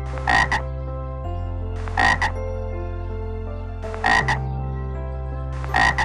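Tree frog calling: four loud croaks about two seconds apart, each a quick double croak.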